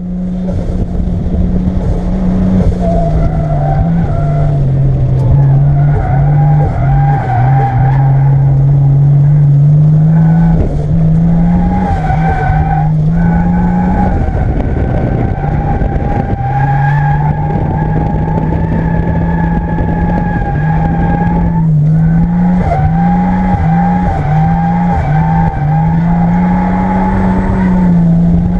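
Toyota Supra MK3's 3.0-litre turbo six-cylinder engine running hard at a fairly steady pitch while the tyres squeal through long drifts. The squeal breaks off briefly twice.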